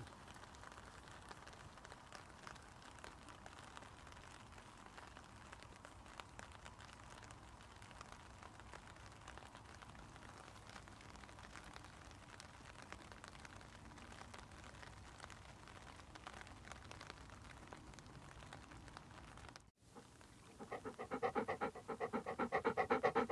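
Dog panting quickly and rhythmically, starting suddenly about 20 seconds in and much louder than anything before it. Until then there is only a faint outdoor hiss with light scattered crackles.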